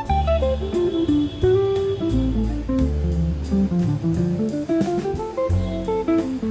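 Background music: a jazzy guitar tune with plucked notes over a steady bass line.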